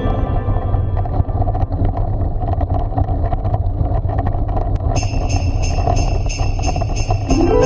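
Background music, Christmas-style: a noisy, rumbling passage without a clear tune. About five seconds in, sleigh bells start jingling in a steady beat of two to three shakes a second, and the tune comes back near the end.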